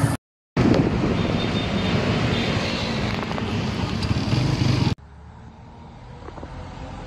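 Ride noise from inside a moving vehicle: engine and road rumble with wind, cut by a brief dropout just after the start. About five seconds in it drops suddenly to a quieter, duller ride noise.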